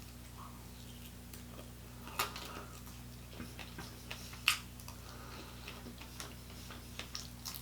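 Eating mouth sounds: scattered soft clicks and smacks of chewing on chicken wings, with two sharper clicks about two seconds and four and a half seconds in, over a low steady hum.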